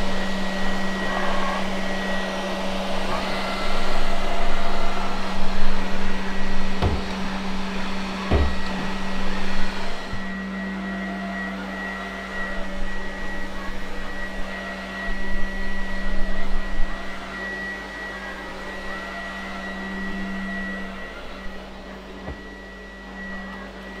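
Lefant F1 robot vacuum cleaner running on carpet: a steady motor hum with a thin high whine, louder at first and quieter after about ten seconds. There are two knocks around seven and eight seconds in.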